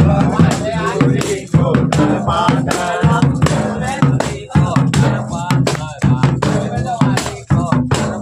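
A group of men singing a Kumaoni Holi folk song together, with a dhol drum beating along.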